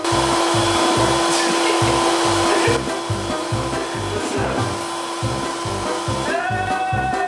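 Electric air pump blowing through a hose: a steady rushing hiss over a constant motor hum, starting abruptly and dropping a little about three seconds in.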